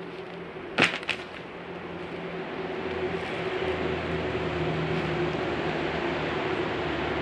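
A metal spatula clacks twice against a steel flat-top griddle about a second in, over a steady low hum. From about two seconds on, a hiss grows louder and then holds, as the filling is pushed onto the omelet on the hot griddle.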